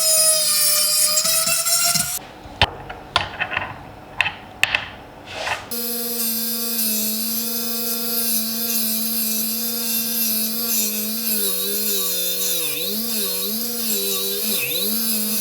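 Electric power tool running with a steady whine, then stopping for a few seconds of scattered knocks and handling sounds. A motor then starts again and runs steadily, its pitch dipping again and again near the end as it is pressed into the work.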